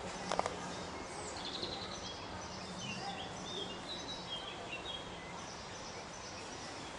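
Small birds chirping and singing over steady background noise and a low hum, with a couple of sharp clicks just after the start.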